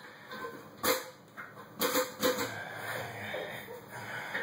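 Porcelain toilet tank lid handled on top of the tank: a few short knocks and scrapes of ceramic on ceramic, one about a second in and a cluster around two seconds.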